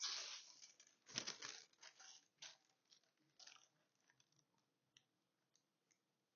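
Parchment paper being handled, rustling and crinkling in short bursts over the first two or three seconds, the loudest about a second in. After that only a few faint ticks as a pencil traces a shape onto the parchment.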